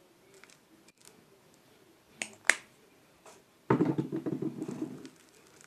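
Two sharp clicks about two and a half seconds in, then about a second and a half of wet crackling and squelching as sticky homemade slime is worked in the hands.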